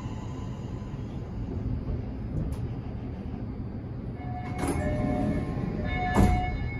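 Toei Mita Line electric train coming to a stop, a low running rumble from inside the car. About four seconds in a chime starts, and two clunks of the door gear follow as the doors slide open, the second one the loudest.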